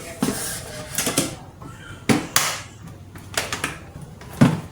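Irregular sharp clicks and knocks of objects being handled, about a dozen, with short bursts of scraping or rustling between them; the loudest knocks come about two seconds in and near the end.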